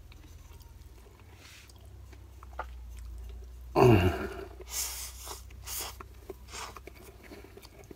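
Close-up eating sounds: a mouthful of rice eaten by hand, with wet, smacking chewing. About four seconds in, as the food goes into the mouth, there is a brief falling hum of voice. A steady low hum lies underneath.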